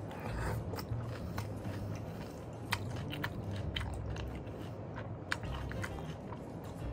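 A man chewing a mouthful of rice and soft catfish eaten by hand, with scattered small wet mouth clicks and smacks.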